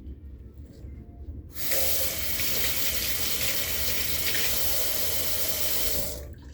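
Water tap running into a sink: turned on about a second and a half in, it runs steadily for about four and a half seconds and is shut off shortly before the end.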